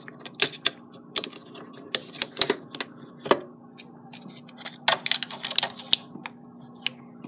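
Plastic blister pack of a CR2032 coin cell clicking and crackling in irregular sharp snaps as it is worked open by one hand to free the battery.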